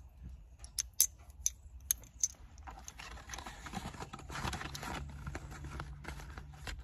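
A handful of sharp light clicks and taps, about five in the first two and a half seconds, then rustling: things being handled and moved about in a car's trunk.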